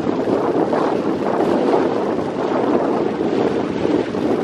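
Longtail boat engine running steadily under way, with wind buffeting the microphone.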